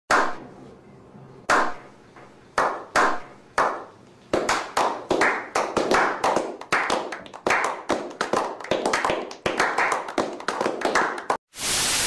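A slow clap by a small group: single hand claps about a second apart, then more hands join and the clapping quickens into steady applause. It cuts off suddenly near the end, and a hiss of TV static takes over.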